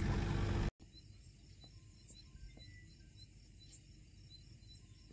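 Steady rushing noise that cuts off abruptly under a second in, followed by a quiet outdoor night background with faint, regularly repeating insect chirps, typical of crickets.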